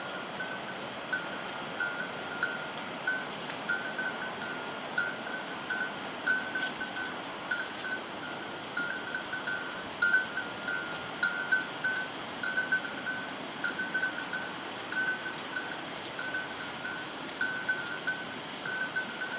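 Bear bell jingling over and over, about one or two rings a second at an uneven pace, over a steady hiss.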